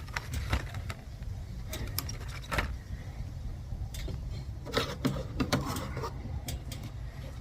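Scattered clicks and light rattles of a string trimmer's head being handled to load new line, with a small cluster of them about five seconds in, over a low steady rumble.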